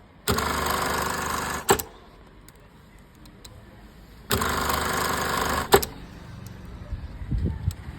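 Industrial lockstitch sewing machine running in two short bursts of stitching, each about a second and a half long and each ending with a sharp click.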